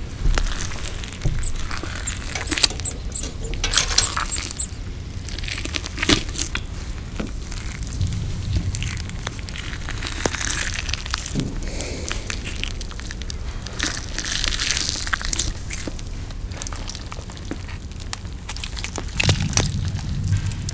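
Close-miked eating sounds: chewing with many sharp crunches and clicks, densest in the first few seconds, and a few dull low thuds near the middle and the end.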